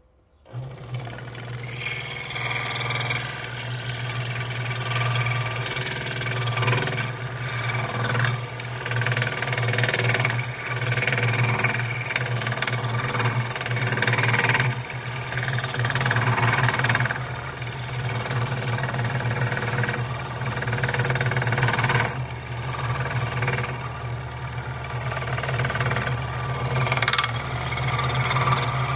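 Electric scroll saw starting up and running, its reciprocating blade cutting a block of wood fed by hand: a steady low hum with a rasping saw noise over it that swells and fades as the cut goes on.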